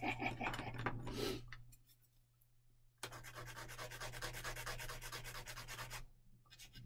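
Sanding stick rubbed quickly back and forth on a small plastic model-kit part, from about three seconds in, for about three seconds. It is smoothing off the nub left where the rudder was snipped from its sprue.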